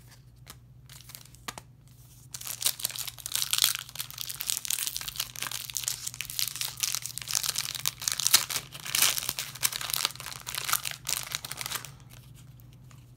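Foil Yu-Gi-Oh! booster pack wrapper being torn open and crinkled in the hands, a dense crackling that starts about two seconds in and stops shortly before the end.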